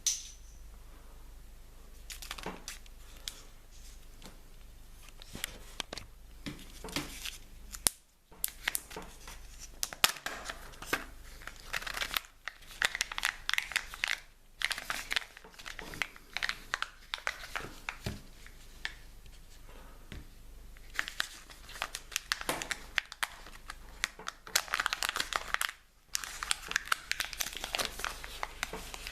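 Crinkly wrapping being handled, crumpled and torn open by hand, in repeated bouts of crackling with short pauses between them.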